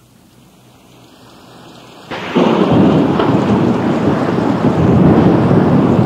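Thunderstorm sound effect played back from a 1988 Halloween sound-effects cassette: a faint hiss that swells, then about two seconds in a sudden loud crack of thunder that rolls on with rain.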